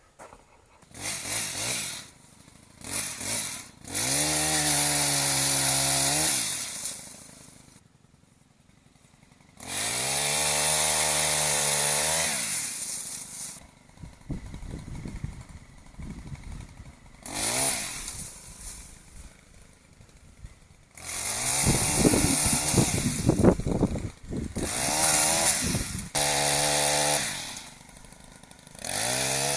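Gas chainsaw revved up to full throttle in bursts of a few seconds, the pitch climbing, holding and dropping back to idle, while cutting limbs off a pin oak. Between the revs come rougher, irregular passages of the saw working.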